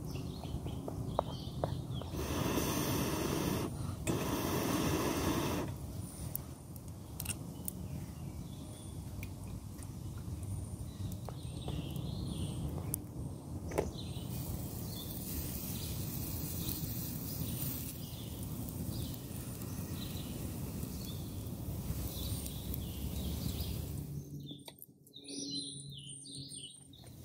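Clinks and scrapes of metal camp cookware as bannock batter is stirred and spooned into a frying pan over a wood fire, with a rough scraping stretch early on and scattered sharp clicks. Birds chirp now and then, most clearly near the end.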